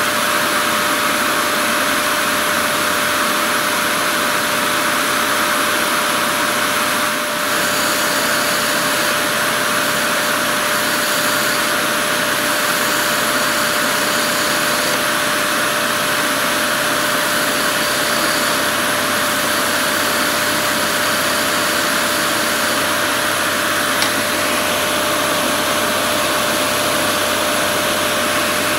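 Wood lathe running steadily, a constant tone over a continuous hiss, while a hand-held lathe knife shaves a small spinning spindle; a single brief click near the end.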